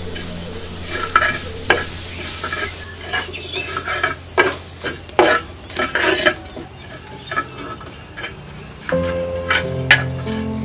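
Grated coconut being dry-roasted in a clay pan, stirred and scraped with a long-handled spatula: repeated scraping strokes over a light sizzle as the coconut toasts golden. Music comes in about nine seconds in.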